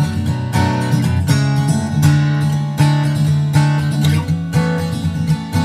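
Background music: a strummed guitar tune with a steady beat.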